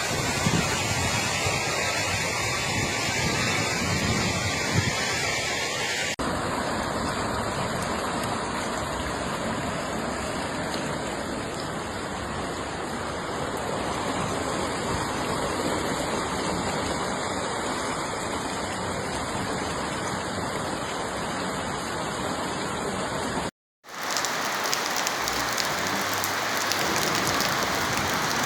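Heavy rain falling, a steady rush of noise. The sound changes abruptly about six seconds in, and again near the end after a brief dropout to silence.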